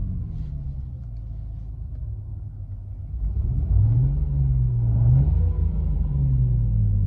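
Synthetic engine sound from a Renault R-Link sound-effect system, played through the car's speakers. A low rumble rises in pitch and grows louder about three and a half seconds in, like revving, then falls back. It rises and falls once more near the end.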